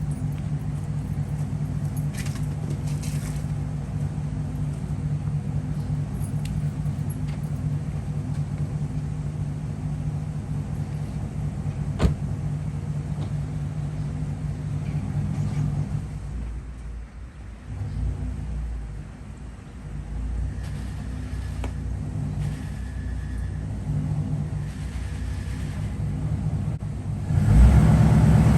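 Car engine idling steadily, its level dipping for a few seconds midway, then revving up loud and hard about a second before the end.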